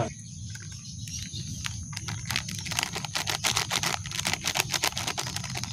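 Crinkling of a plastic-foil instant-coffee sachet being handled and shaken out over a glass mug: a rapid run of crackles, thickest from about halfway through until shortly before the end.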